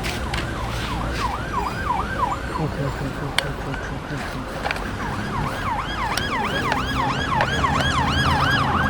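Electronic siren of a toy vehicle playing a fast warbling wail of about three sweeps a second. It sounds briefly at the start, then again from about halfway through.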